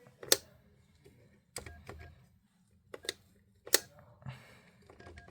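Buttons being pressed on a Yealink T31P desk phone: about six sharp plastic clicks at irregular intervals, some followed by a short faint beep, as the phone's menu is stepped through.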